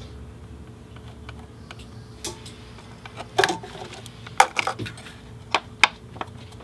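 Sharp plastic-and-metal clicks and knocks, irregular and about eight in all, as an inline fuse holder and its ABS plastic mounting block are handled and fitted against a car battery's terminal bolt. They begin a little over two seconds in, over a faint steady hum.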